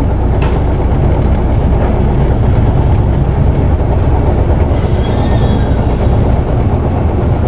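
Isuzu PKG-KV234L2 city bus diesel engine and road noise heard from inside the cabin while the bus drives: a loud, steady low rumble, with a faint rising whine about five seconds in.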